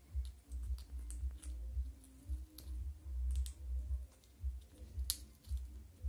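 Monk parakeet nibbling and crunching a piece of food held in its foot: irregular small sharp clicks and cracks, the loudest about five seconds in, over a low pulsing rumble.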